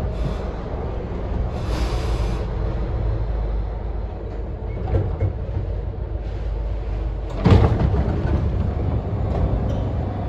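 SEPTA Broad Street Line subway car rumbling as it pulls into a station and stops; about seven and a half seconds in, the doors open with a sudden loud clunk.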